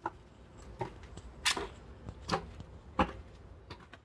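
Footsteps climbing stairs: six soft, evenly spaced steps.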